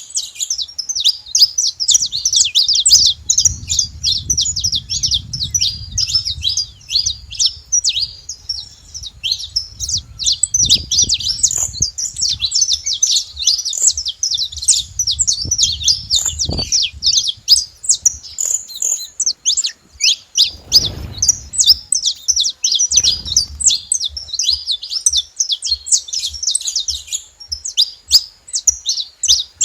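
A flock of saffron finches chattering: a dense, unbroken stream of rapid, high, overlapping chirps. Low rumbling noise comes in a few times underneath.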